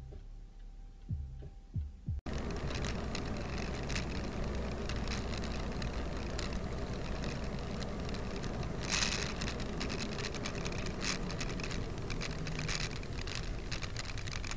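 Dashcam audio from inside a moving car. For about two seconds there are only a few low thumps. Then, after a sudden cut, steady road and engine noise runs on, full of small clicks and rattles, with a brief louder rush of noise about nine seconds in.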